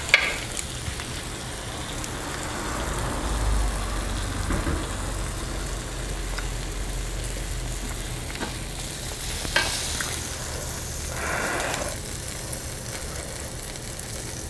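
Pork riblets sizzling steadily on a Brentwood electric tabletop grill, with a few sharp clicks of chopsticks against the grill plate at the start.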